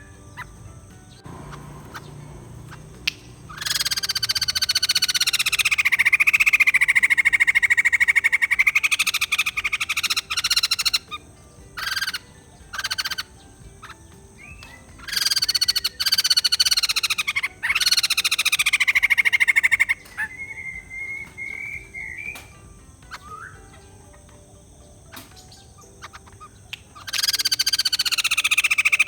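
White-crested laughingthrush calls: long stretches of rapid, pulsing cackling chatter several seconds at a time, with quieter gaps between, and a short wavering whistle in the middle.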